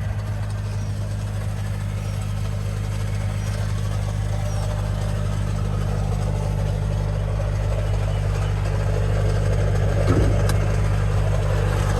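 Nissan 370Z's 3.7-litre V6 idling steadily with a rattle, which came on together with a failed air-conditioning system. A single short knock sounds about ten seconds in.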